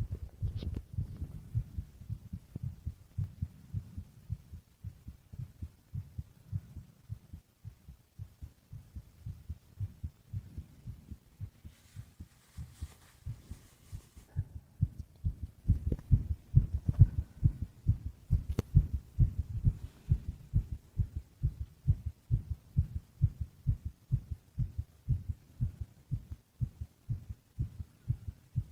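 Human heartbeat: a steady rhythm of soft, low thumps that grows louder about halfway through. A faint hiss sounds briefly just before the middle.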